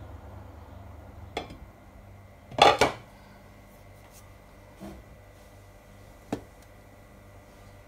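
Metal clatter from an aluminium food steamer: a loud double clank a little over two and a half seconds in, with single lighter knocks before and after it.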